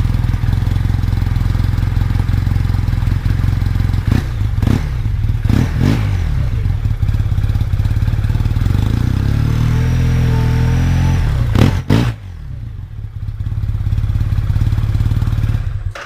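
Arctic Cat Wildcat Sport UTV engine idling through a newly installed HMF aftermarket muffler, with a few quick throttle blips and a longer rev later on; the sound cuts off abruptly at the end.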